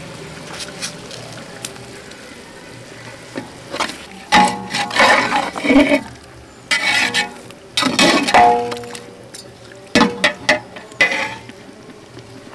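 A steel ladle stirs and scrapes thick mutton masala around a large aluminium pot in three bouts of clattering scrapes with a metallic ring.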